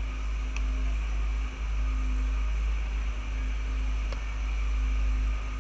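Steady low hum of a river tour barge underway, with a faint steady tone above it and no distinct events.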